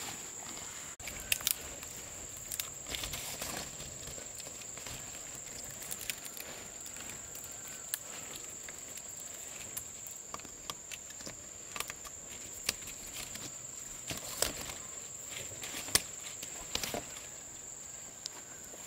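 A steady high-pitched insect chorus, like crickets, runs throughout, with scattered sharp clicks and knocks at irregular intervals.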